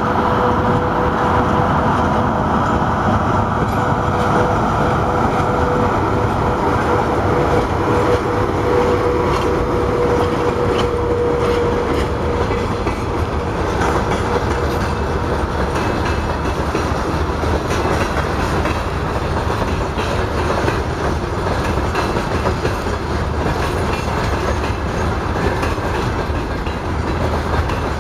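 Freight train wagons behind a VL80K electric locomotive rolling past, their wheels clattering steadily over the rail joints. A steady whine sounds along with it and fades out about halfway through.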